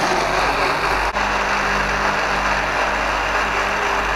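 Countertop blender running steadily at full speed, its motor churning cucumbers, water and ice cubes into a frothy green drink.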